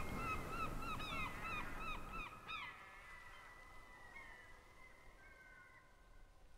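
Geese honking: a quick run of repeated calls that fades away about three seconds in, leaving a few faint calls.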